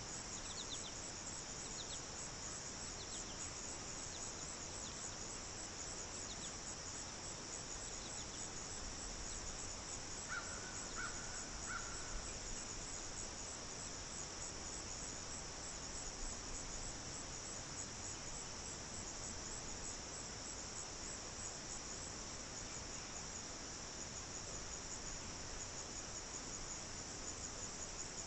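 Steady, high-pitched insect chorus pulsing rapidly and evenly, typical of crickets; a short call of a few notes sounds briefly about ten seconds in.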